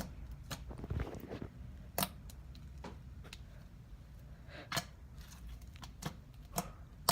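Slime being stretched and handled, giving scattered sticky clicks and soft squelches, about seven or eight sharp ones spread unevenly.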